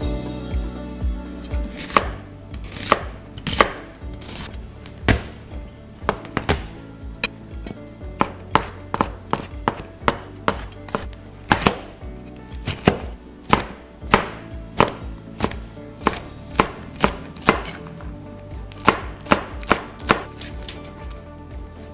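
Chef's knife chopping on a plastic cutting board, mincing garlic and slicing chili peppers. It is a run of sharp knocks of blade on board, about two or three a second, starting a couple of seconds in.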